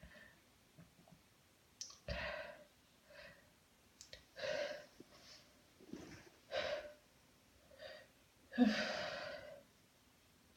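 A woman's heavy breathing in a sneezing fit: a series of breathy sighs and sniffs a second or so apart, the longest and loudest near the end.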